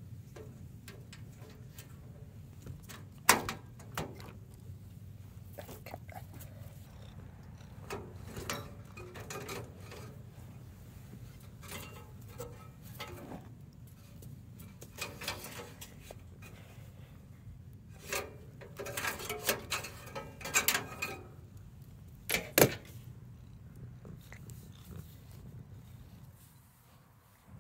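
Clicks, knocks and plastic rattles from handling the parts of a Dell desktop computer case: a plastic drive bracket and its cables are worked out of the metal drive cage. Two sharp clicks stand out, one about three seconds in and one near the end, and a rattly stretch of handling comes about two-thirds of the way through, all over a steady low hum.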